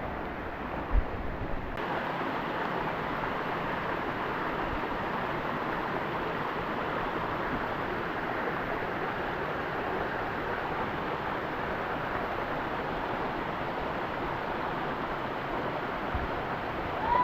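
Steady rush of water from a waterfall, an even hiss with no pitch to it. A short low knock comes about a second in.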